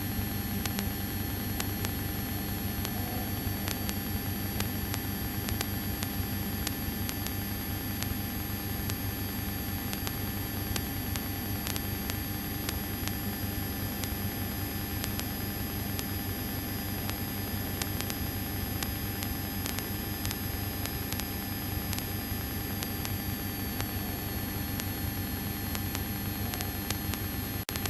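Steady drone and hiss of a light aircraft's piston engine and propeller in cruise, heard from inside the cockpit, with a constant low hum and a faint high whine.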